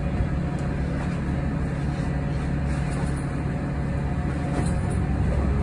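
Cabin noise of a Yutong ZK6128BEVG battery-electric bus on the move: a steady low rumble with faint steady hums over it.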